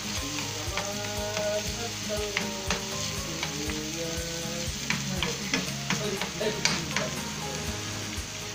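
Chopped onion and garlic sizzling in oil in a wok, stirred with a metal spoon that scrapes and clicks irregularly against the pan.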